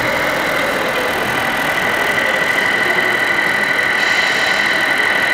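Radio-controlled King Hauler model semi-truck driving slowly, with a steady high-pitched whine over a mechanical running sound.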